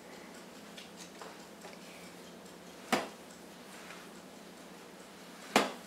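Two short, sharp knocks about two and a half seconds apart over quiet room tone, from a red stick vacuum being pushed and tilted on carpet while switched off.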